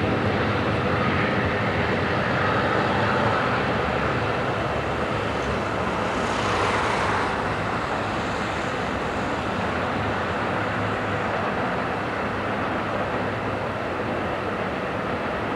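Diesel train running past with a steady rumble.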